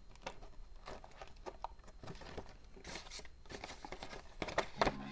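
Paper bills and cash envelopes being handled: irregular rustling and crinkling with small clicks and taps. Soft background music comes in near the end.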